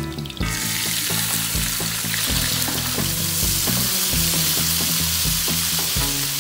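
Chunks of sturgeon frying in hot oil with garlic in a wok: the sizzle jumps sharply louder about half a second in as the fish goes into the oil, then holds steady while a spatula turns the pieces.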